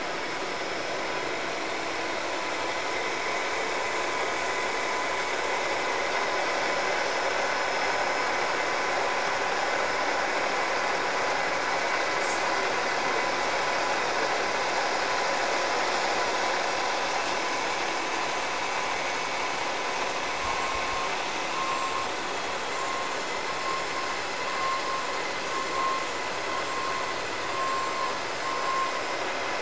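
Steady hum and whine of running workshop machinery. About two-thirds of the way in, a beep starts repeating about once a second.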